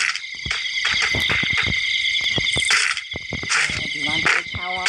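A steady, high-pitched insect chorus, with many sharp clicks and knocks over it.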